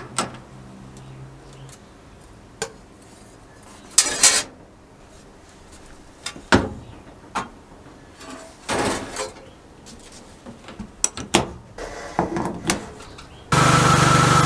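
Workshop handling sounds: scattered knocks and clinks of tools and parts being picked up and set down. About a second before the end a power tool starts and runs steadily.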